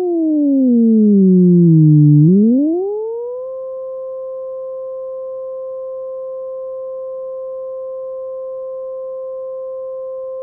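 Synth One synthesizer app imitating a Federal Signal 2001-130 siren: a pair of tones an octave apart slides down in pitch for about two seconds, sweeps quickly back up, then holds one steady siren note.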